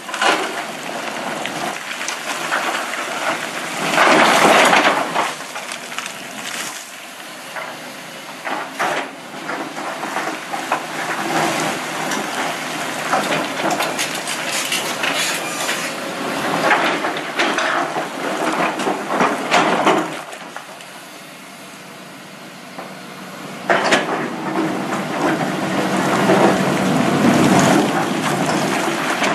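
Excavator bucket digging and scooping broken rock in a barge's hold, stones grinding and clattering against the steel bucket and each other, over the excavator's engine. A loud scraping burst comes about four seconds in, a short lull a little past two-thirds of the way, then steady louder grinding again near the end.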